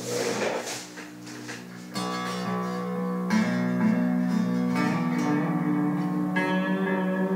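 Chapman ML7 seven-string electric guitar played through an amp with a clean tone: sustained, ringing chords and picked notes, with a louder chord struck about two seconds in.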